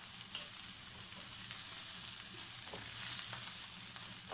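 Diced onion, carrot and red pepper with garlic cloves sizzling in olive oil in a frying pan: a steady frying hiss with a few faint pops.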